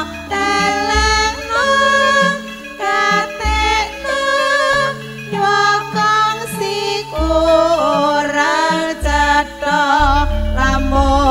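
Javanese campursari band playing a langgam: a wavering melody with vibrato over a steady pulse of bass and drum notes.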